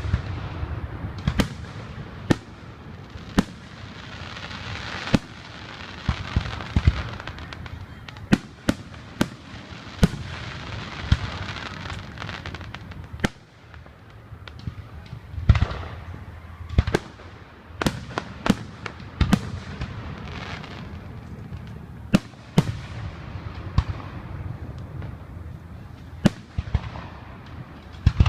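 Aerial fireworks show: a rapid series of sharp booms from shells bursting overhead, with stretches of hissing and crackling between them.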